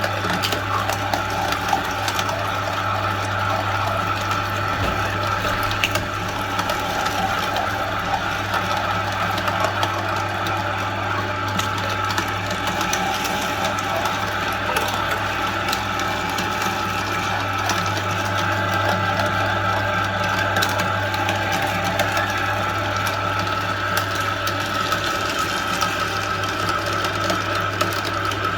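Meat grinder machine running steadily, a constant motor hum with mechanical rattle.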